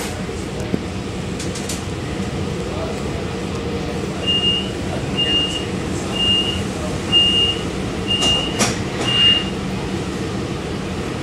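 Steady rumble and hum inside a standing Long Island Rail Road C3 bi-level passenger car, with six short high beeps about one a second midway through and a sharp click near the last beep.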